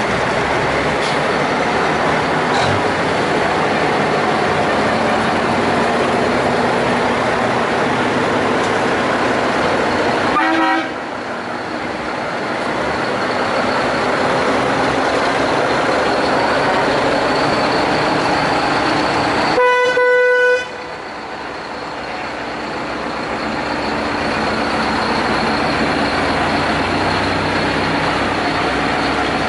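Vintage Brockway heavy trucks driving past one after another, their engines running loud and steady. A truck horn blasts for about a second roughly two-thirds of the way through.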